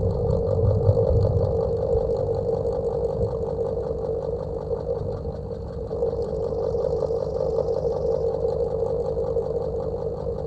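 Old electric fan running steadily: a constant hum with a fast, fine flutter.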